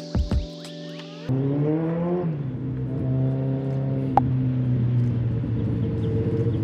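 Background music cuts off about a second in, and the loud engine of a motor vehicle on a busy road takes over: its pitch climbs and then drops, then it runs on as a steady low drone. A single sharp click about four seconds in.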